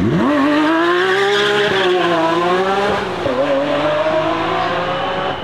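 Lamborghini Aventador's V12 launched hard from the start line, revs climbing steeply and running up through the gears, with upshifts after about a second and a half and again at about three seconds.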